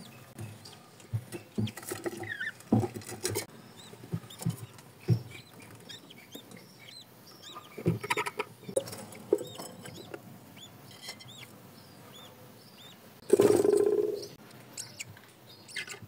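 Budgerigars chirping softly: many short, high, arching chirps, mixed with scattered clicks and taps, and one louder rough burst about thirteen seconds in.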